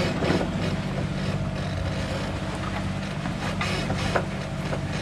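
A sailing catamaran's engine runs steadily while motor-sailing: a constant low hum, with the steady rush of water along the hulls.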